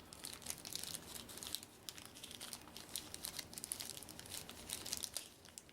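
Plastic packaging crinkling and clicking as thick plastic game tokens are popped out of it by hand, in many small irregular crackles.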